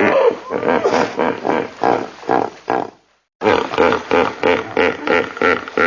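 Hippopotamus calling: a rapid run of deep, pulsed grunting honks, about three a second. The calls break off for a moment about three seconds in, then resume.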